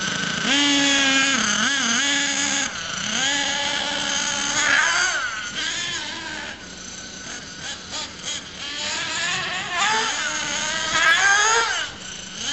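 Small two-stroke nitro (glow-fuel) engine of an RC monster truck revving up and down over and over, its pitch repeatedly rising and falling, with a quieter stretch in the middle.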